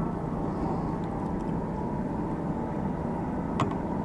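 Steady low rumble of traffic on the toll road overhead, with a single sharp click about three and a half seconds in.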